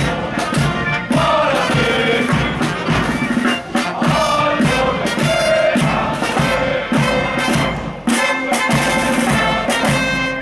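Military marching band playing a march: trumpets and clarinets over the beat of bass drum and snare drums.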